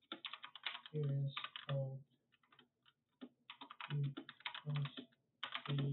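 Computer keyboard typing in quick bursts of keystrokes with short pauses between them. Several bursts carry short low-pitched hums.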